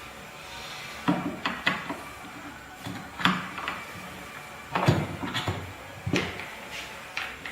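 Hands working a drive belt into place on a home-built magnet motor-generator: several clusters of hard clicks and knocks from the parts being handled.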